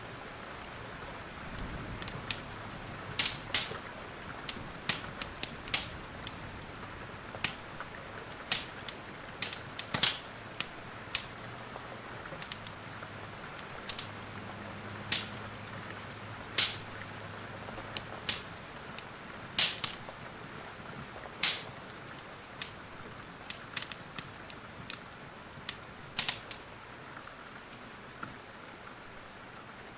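Steady rain hiss with irregular sharp crackles and pops from a burning wood fire, roughly one or two a second.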